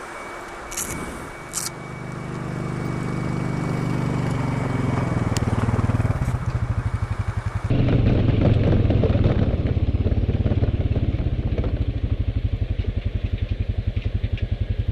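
ATV engine running and growing steadily louder, as if a quad is drawing closer. About eight seconds in the sound changes abruptly to a loud engine running close by with a fast, even pulsing beat. Two short clicks come about a second in.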